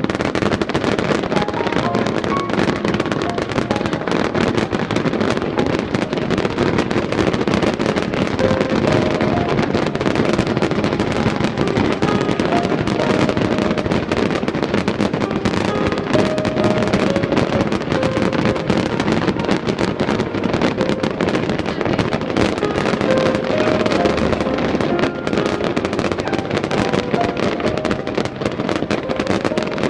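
A dense, unbroken barrage of fireworks bursting and crackling, with music playing underneath.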